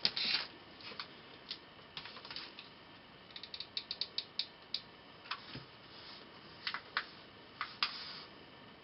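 Scattered small, sharp clicks and taps, with a quick run of about eight clicks a second a few seconds in: a hot glue gun's trigger being worked to feed glue while small metal propeller parts are glued down.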